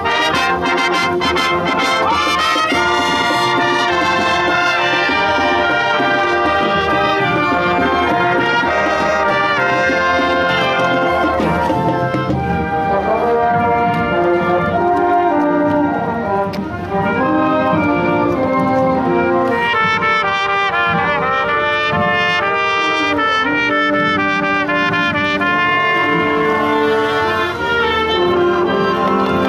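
Junior high school marching band playing continuously and loudly: trombones, trumpets, saxophones and sousaphones with marching drums.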